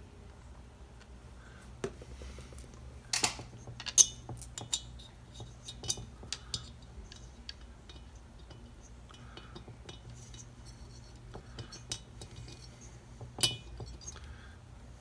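Scattered metallic clinks and clicks of small steel screws and a Torx bit being handled and started into a chainsaw cylinder, a few sharper clinks standing out, over a faint low steady hum.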